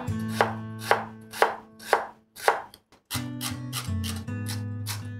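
Chef's knife chopping raw potato slices into thin strips on a wooden cutting board: sharp knocks of the blade on the board, about two a second, then after a brief pause about three seconds in, faster, about four a second.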